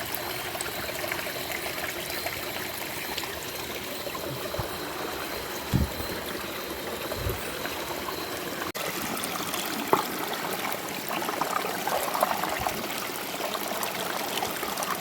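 Creek water running and trickling steadily, with a couple of short low thumps partway through.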